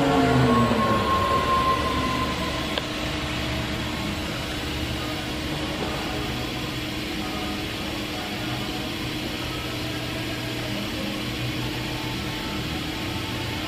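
Thermwood C-40 CNC router running: a motor whine falls in pitch and dies away over the first two seconds, leaving a steady mechanical hum with hiss. There is a single short click about three seconds in.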